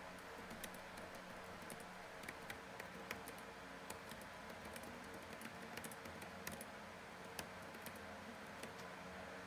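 Faint, irregular clicks of typing on a computer keyboard over a steady background hum and hiss.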